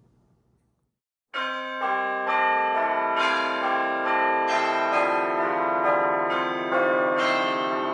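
Church bells pealing, starting suddenly about a second and a half in, with strokes about twice a second and each stroke ringing on under the next.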